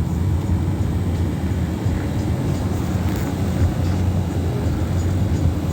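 A car driving at steady speed: a continuous low hum of engine and road noise.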